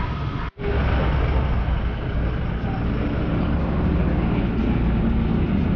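Toyota Hilux pickup's engine running steadily. The sound cuts out for an instant about half a second in, then resumes.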